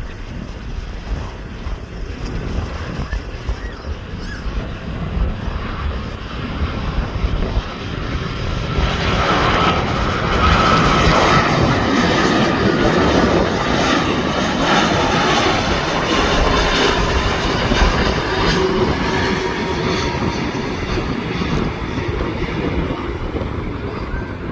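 Boeing 787 airliner on landing approach passing by, its jet engine noise swelling from about eight seconds in, loudest in the middle, then slowly fading. A low wind rumble on the microphone runs underneath.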